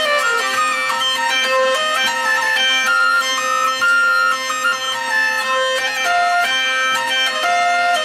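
Hurdy-gurdy playing a lively melody on its keyed strings over a steady, unchanging drone.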